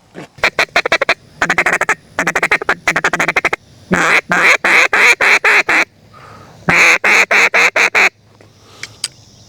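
Duck call blown in several quick runs of evenly spaced quacks, with short pauses between the runs.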